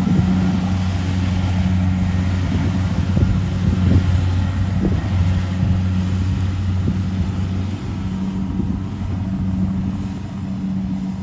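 Kubota DC70 combine harvester's diesel engine running steadily with a deep hum, mixed with irregular knocks and rattles from the tracked machine working through mud. It grows slightly fainter after about eight seconds as the machine moves away.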